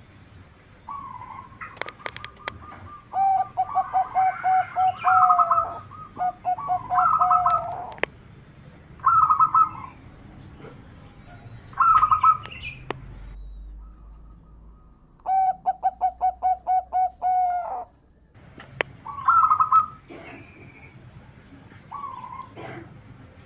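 Zebra doves (perkutut) cooing: rapid runs of short, staccato notes alternating with brief separate coo phrases, phrase after phrase with short pauses.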